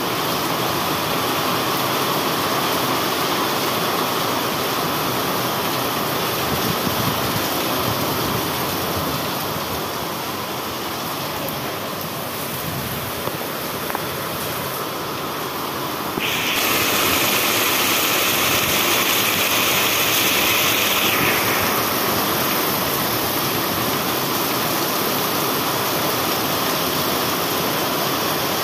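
Heavy rain pouring steadily, splashing on wet concrete. The rain turns louder and hissier for about five seconds just past the middle.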